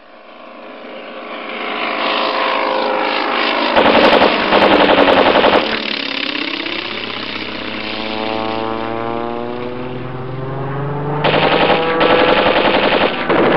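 Propeller aircraft engine drone, fading in and sweeping up and down in pitch, with rapid machine-gun fire in two long bursts: one about four seconds in lasting nearly two seconds, the other starting about eleven seconds in.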